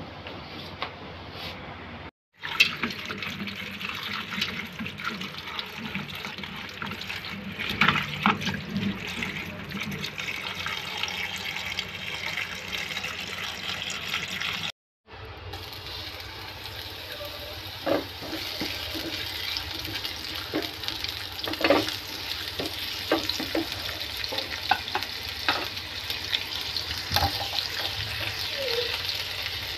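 Tap water running as cut green beans are rinsed in a colander. Then garlic sizzles in hot oil in a pan, with scattered clicks as it is stirred.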